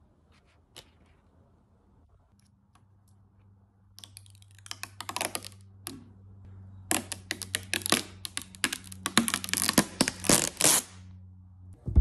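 Paper and packaging being handled and crinkled, in two bouts of dense crackling, one about four seconds in and a longer one from about seven to eleven seconds. A few faint ticks come before them, over a low steady hum.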